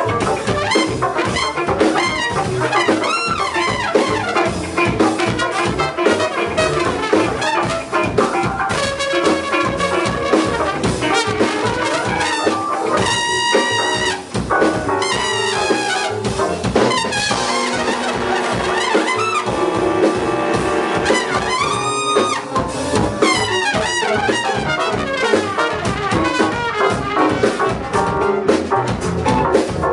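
An ensemble playing dense, busy music, with several pitched instruments sounding together over a steady beat of drum strokes.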